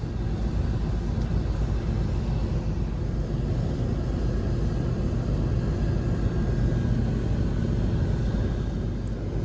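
Carrier rooftop air-conditioning unit running steadily, a low rumble of compressor and fans, while it cools with about a 20-degree temperature drop across the coil.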